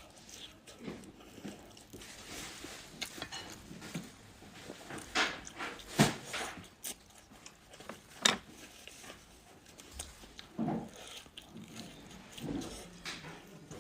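Close-up eating sounds of a person chewing and biting spicy rice noodles with tofu skin: irregular wet mouth noises with a few sharp clicks, the loudest about six and eight seconds in.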